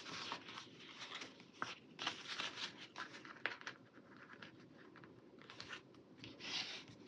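Paper sticker sheets being handled: faint rustling and crinkling with scattered light clicks and taps.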